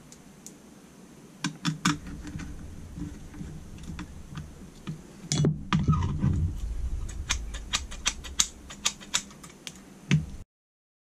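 Irregular light clicks and taps of metal parts as a Holley 4150 aluminium carburettor throttle baseplate and its linkage are handled on a workbench, with a louder clatter about five to six seconds in. The sound cuts out suddenly near the end.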